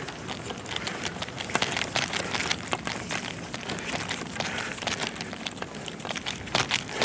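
Irregular clicks, taps and rattles of a fishing landing net's hoop and handle being fitted together in a hurry, over a steady hiss.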